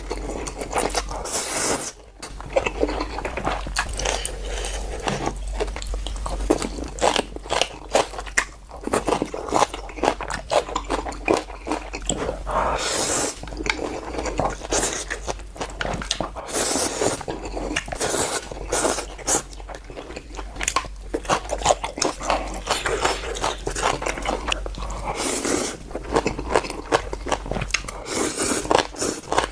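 Close-miked eating: a person biting, crunching and chewing food, with many small crisp mouth clicks and a few longer wet swells, over a steady low hum.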